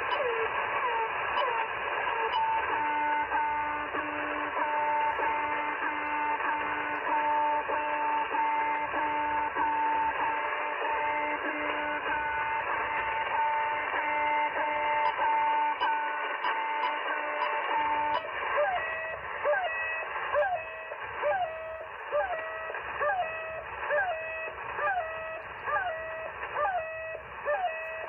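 Russian shortwave channel-marker signals in upper sideband from an Icom IC-R75 communications receiver, over band hiss. It opens with a repeating falling chirp. After retuning comes a steadily pulsing two-tone beep, and from about two-thirds of the way in a different marker gives a falling chirp about once a second.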